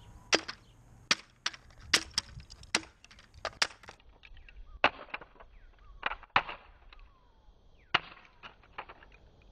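Claw hammer smashing a layered wooden deer model on asphalt: about fifteen sharp blows at an irregular pace, wood cracking and the hammer hitting the road.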